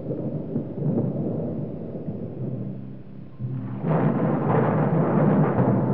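A deep rumble that dips, then swells louder and brighter about four seconds in.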